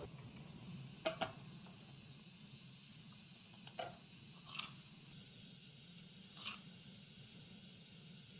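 Light knocks and clinks of a pan and kitchen utensils on a small gas-cylinder burner: two sharp ones close together about a second in, and a few softer ones later. A faint steady hiss runs underneath.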